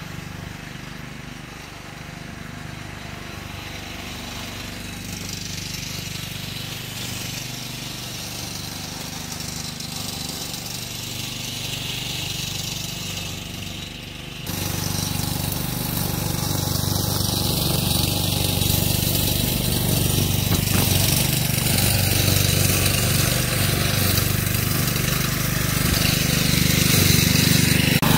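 An engine running steadily, a low even hum that grows louder and fuller about halfway through.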